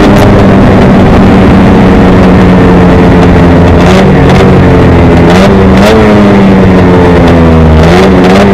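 Racing snowmobile's two-stroke engine at full throttle, very loud as heard from the sled itself. The engine note dips slightly and climbs back a few times, about 4, 6 and 8 seconds in.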